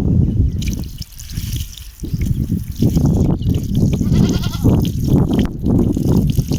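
Running water splashing and rushing, heavy in the low range, dropping away for about a second a second in.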